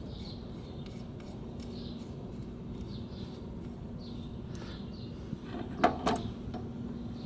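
Two quick, sharp metal clacks close together about six seconds in, as a Toyota ECHO front brake caliper is handled and seated back onto its mounting.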